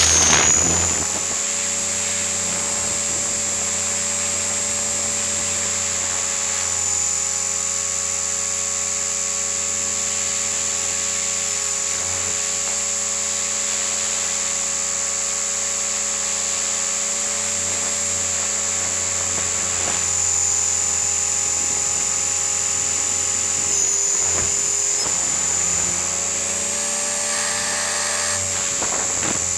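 Align T-REX 500 electric RC helicopter in flight, heard from a camera mounted on its nose: the brushless motor, gears and rotor make a steady high whine over lower humming tones. The pitch shifts slightly a few times as the helicopter manoeuvres. A brief rush of wind in the first second.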